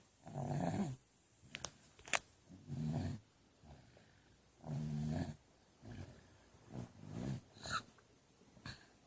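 Snoring: four low, rattling snores, one on each breath about every two seconds, with short snorts and clicks between them.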